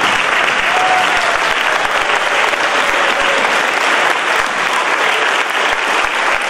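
Sustained applause from a large audience of schoolchildren and teachers clapping together, steady and unbroken.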